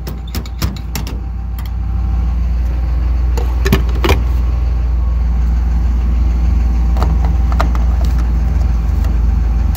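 Steady low rumble, with sharp clicks and clunks as a gas-pump nozzle is pulled from a car's filler neck and hung back on the pump about four seconds in, then a few lighter clicks as the fuel cap is screwed shut.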